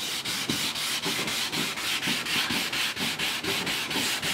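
Fine P600 wet-and-dry paper, lubricated with turpentine, rubbed by hand in rapid, even back-and-forth strokes over the clear-lacquered wooden radio cabinet. It is cutting back the dulled, dirty finish and smoothing it.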